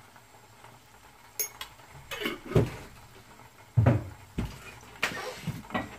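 Kitchen clatter: light clicks, then a string of separate knocks and clinks as a spice jar and cooking utensils are handled and set down, with one loud knock just past the middle.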